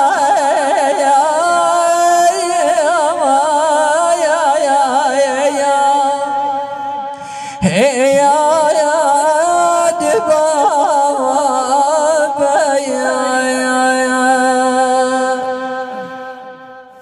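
A man chanting a Shia Husseini mourning elegy into a handheld microphone, drawing out long melismatic notes with a heavy wavering vibrato. He breaks off briefly about seven and a half seconds in, then sings on, ending on a long steady note that fades away.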